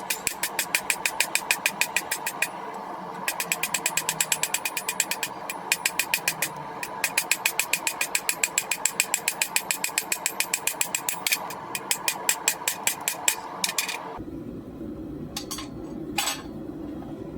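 Rapid, even hammer blows on steel in forging, about six a second, in runs with short breaks over a steady background hiss. The blows stop about 14 seconds in, and two lone knocks follow.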